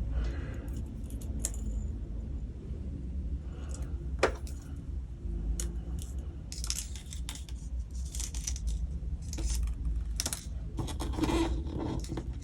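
Light clicks and small rattles of handling tiny plastic beads and jewellery-making tools, scattered irregularly and busier in the second half, over a steady low hum.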